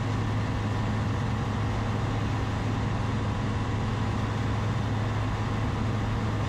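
Steady cruise-power drone of a Zenith STOL CH 701's 100-hp Rotax 912ULS four-cylinder engine and propeller in level flight, with a strong low hum.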